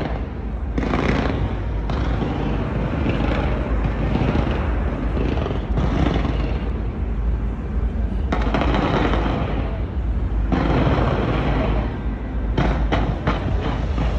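Fireworks barrage bursting without a break: heavy booms run together into a continuous rumble, with a quick run of sharp cracks near the end.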